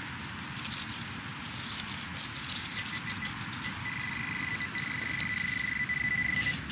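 Handheld metal-detecting pinpointer probe scraping and crackling through frozen soil, snow and straw stubble. About three seconds in, its steady high-pitched alert tone starts and holds, the sign of a metal target right at the probe's tip.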